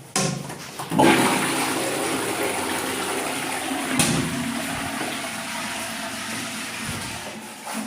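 Toilet flushing: a rush of water starts suddenly about a second in and slowly dies away, with a brief click partway through.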